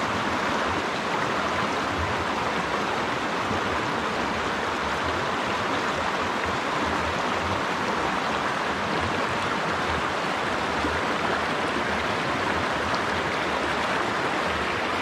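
Small rocky mountain stream running over stones in shallow riffles: a steady, even rush of water.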